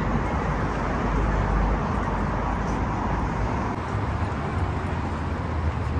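Steady city street traffic noise, with a low rumble from passing vehicles that swells about a second in and again near the end.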